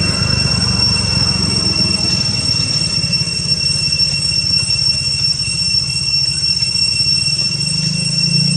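Steady background drone: a constant high whine over a low rumble, with no distinct events.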